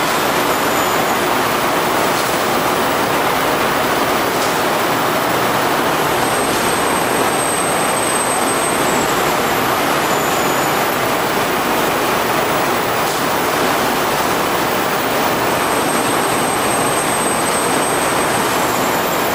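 Meatball production line running, a loud, steady, even machine noise with no distinct rhythm.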